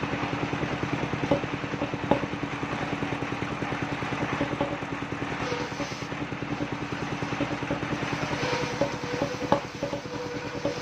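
Engine driving a mobile circular sawmill, running steadily with an even beat, with a few sharp knocks of timber or metal.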